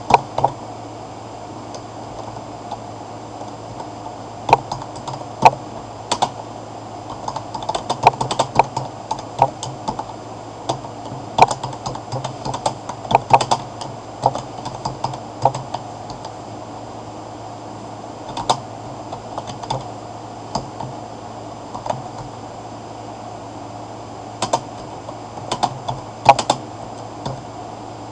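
Typing on a computer keyboard: irregular runs of keystroke clicks with short pauses between words, over a steady low hum.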